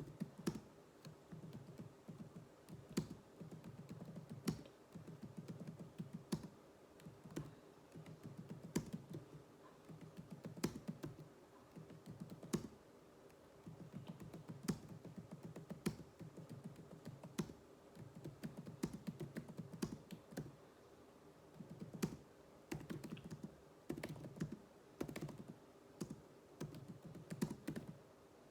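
Typing on a computer keyboard: runs of rapid keystrokes broken by short pauses, with a few keystrokes clacking louder than the rest. Steady touch-typing drill practice.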